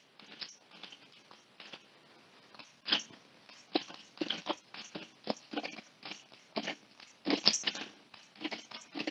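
Plastic organiser tray and cardboard tiles being handled: irregular clicks, taps and light rattles, with louder knocks about three seconds in and again around seven and a half seconds.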